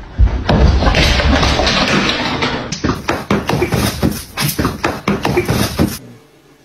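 Two cats wrestling, a run of rapid scuffling taps and thumps that stops suddenly near the end, after a loud noisy rustle.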